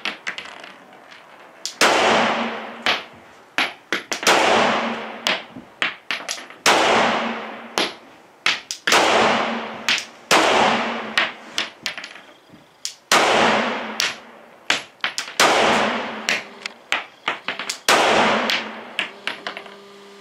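Glock 17 Gen 3 9×19 mm pistol fired in single, deliberate shots spaced about one to two seconds apart. Each shot is followed by a long ringing echo off the walls of an indoor range, and fainter sharp clicks fall between the shots.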